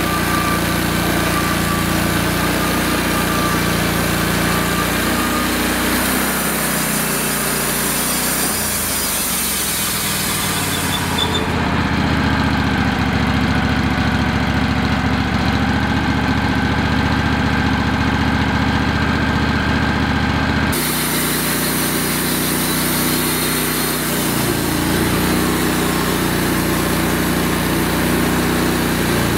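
Wood-Mizer LX150 portable band sawmill running under load, its gas engine steady while the band blade saws through a cherry log. The tone of the machine changes abruptly about a third of the way in and again about two-thirds through.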